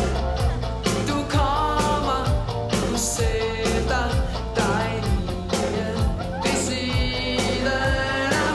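A band playing a pop-rock song live: a boy singing in Danish over electric guitars, keyboard and a steady drum beat.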